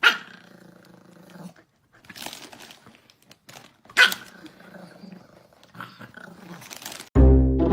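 A dog barking twice, about four seconds apart, with quieter scattered noises in between. Music starts near the end.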